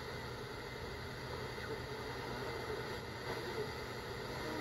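Steady static hiss from a GE digital clock radio's speaker while its tuning dial is turned slowly between stations.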